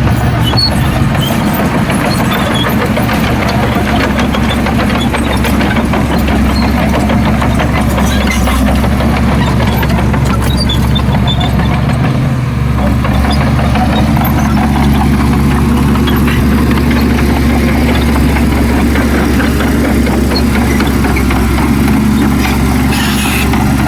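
Heavy diesel engine of earthmoving machinery running steadily, with a brief dip about twelve seconds in.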